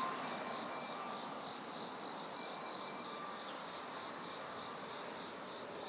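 A steady chorus of insects shrilling, over a low, even hiss of road traffic.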